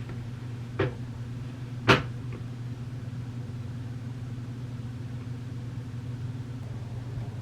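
Steady low hum with two short, sharp knocks, the first about a second in and the louder one about a second later.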